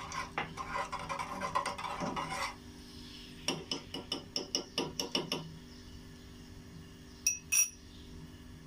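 A metal spoon stirring cloves in warm oil in a small stainless steel saucepan, scraping and clicking against the pan. Midway comes a quick run of about ten sharp clicks, and near the end two bright ringing clinks of the spoon on the metal.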